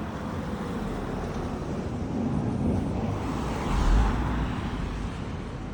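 A road vehicle driving past, its noise swelling to a peak about four seconds in and then fading away.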